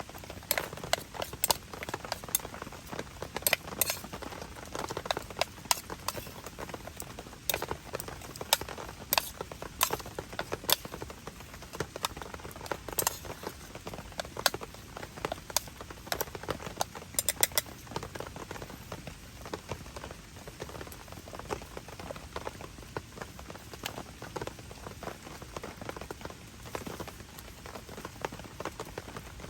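Heavy rain falling steadily, with large drops striking close by as sharp, irregular taps, thickest in the first half.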